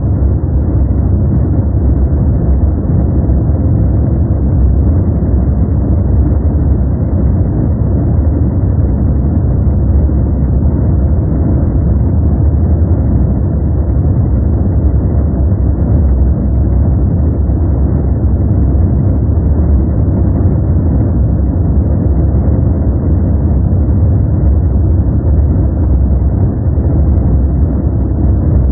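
Steady, deep noise from a sleep and relaxation noise track: an even hiss weighted heavily to the low end, with no tones or changes.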